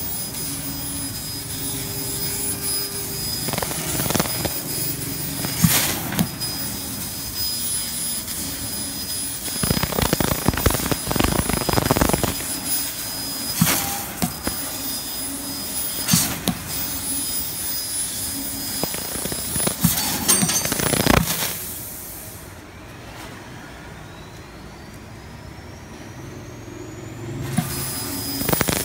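EZ Laser GL510 laser cutting machine running as it cuts sheet metal: a steady hum with a thin high whine, broken by repeated short bursts of loud hissing. It goes quieter for a few seconds near the end, then picks up again.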